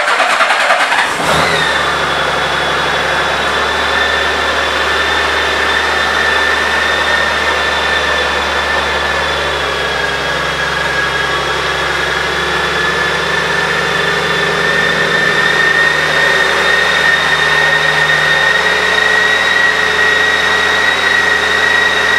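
2003 Honda Gold Wing GL1800's flat-six engine starting about a second in, then idling steadily, with a steady high whine over it.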